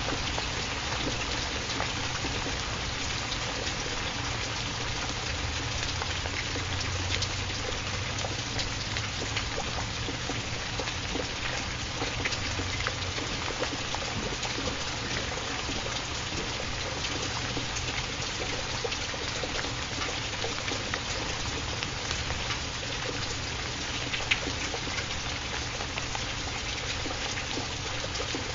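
Steady rain, an even hiss of rainfall with many small drops ticking through it.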